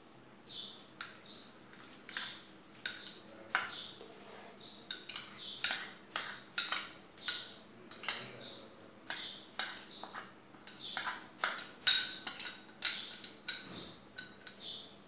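Metal spoon scraping and tapping against a glass bowl, many quick irregular clinks, as soaked ground rice paste is scraped out into a pan of hot milk. The taps come thickest through the middle.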